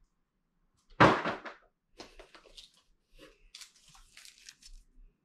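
A single thump about a second in, then irregular crinkling and rustling of packaging as craft supplies are handled and unwrapped.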